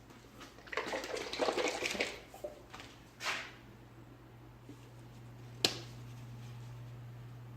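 Handling noises: a second and a half of rattling and rustling, a short scrape, then one sharp click nearly six seconds in, over a steady low hum.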